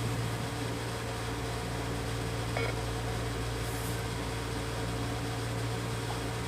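Steady low electrical hum over room tone, with one faint, brief blip about two and a half seconds in.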